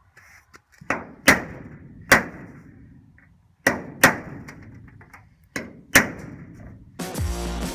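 Seven sharp, loud metallic cracks, mostly in pairs about half a second apart, each with a short ringing tail, from work on the bus's sheet-metal floor patch. Background music comes in near the end.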